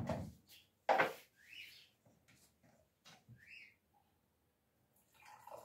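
Kitchen clatter from plastic containers and dishes being handled: two sharp knocks, at the start and about a second in, then lighter rattles, with two short high chirps in between. A steady hum comes in near the end.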